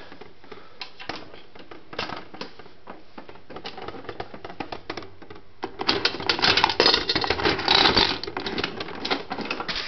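Oak Acorn gumball machine's metal crank mechanism being worked, with scattered clicks. About six seconds in this turns to a louder rapid clicking and rattling as the mechanism turns and small gumballs drop out.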